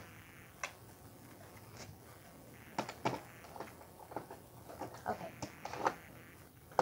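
Small items being handled and packed into a tote: irregular light clicks and taps, a few at first and more frequent in the second half.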